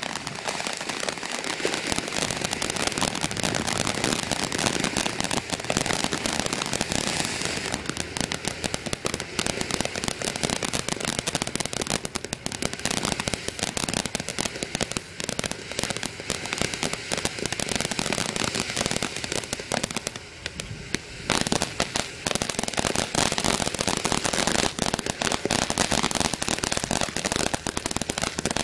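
A 200-gram ground fountain firework spraying sparks with a dense, continuous crackle of rapid tiny pops. About two-thirds of the way through the crackle thins briefly, then comes back with a few louder pops.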